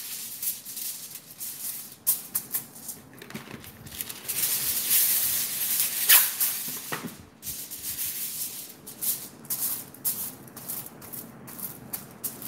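Aluminium kitchen foil crinkling and rustling as a sheet is pulled off the roll in its box, with a longer rustle around the middle, then quick crackles as hands press the sheet flat.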